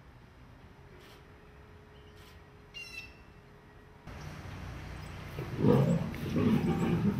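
Lionesses growling at each other in a scuffle over meat, loud and rough, starting about five and a half seconds in. Before it there is a quiet stretch with a short bird chirp.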